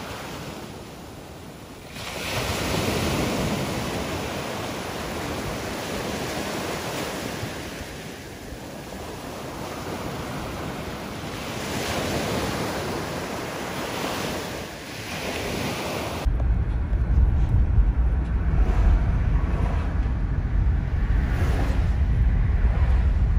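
Small ocean waves breaking and washing up a sandy shore, the wash swelling and ebbing with each wave, with some wind on the microphone. About 16 seconds in it cuts to a steady low road rumble inside a moving car's cabin.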